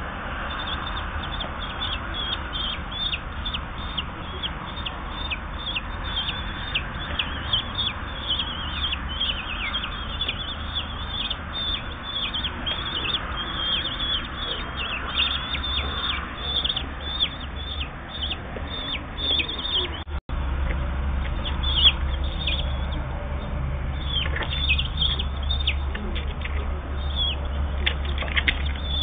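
Common kestrel chicks, 8 to 10 days old, begging while they are fed: a dense, continuous run of short, high calls, each falling in pitch.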